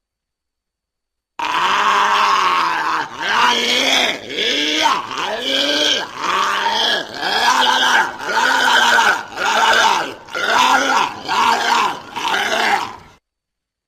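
Walrus giving a rapid series of about ten throaty calls, roughly one a second, each rising and then falling in pitch. The calls start after a short silence and stop shortly before the end.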